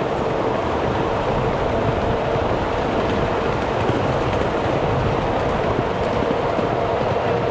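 Ride-on miniature train running slowly along its track, heard from a passenger seat: a steady rolling rumble of wheels on rail with a faint steady whine.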